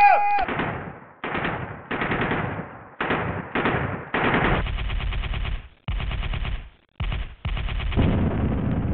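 Several bursts of automatic gunfire, each a rapid rattle of shots lasting about half a second to a second and a half, with short gaps between them. The last burst runs longest.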